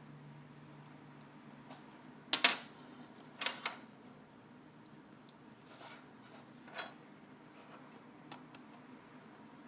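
Small repair tools clicking and tapping against the parts of an iPhone 4S during reassembly. There is a sharp double click about two and a half seconds in, two lighter clicks about a second later, and single faint ticks near seven and eight seconds.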